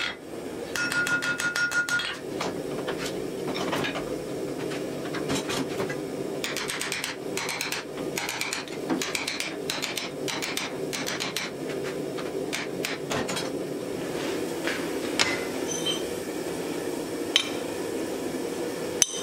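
Hand hammer striking red-hot steel. The anvil rings with each blow in the first couple of seconds, then comes a long run of quick strikes, and a few sharp metallic clinks follow near the end. A steady low rushing sound runs underneath.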